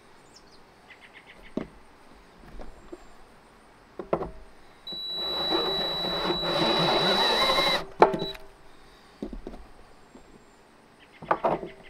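Cordless drill with a step bit enlarging a hole in a plastic barrel: the drill runs for about three seconds with a steady high motor whine over the cutting noise, then stops. A few light clicks and knocks come before and after it.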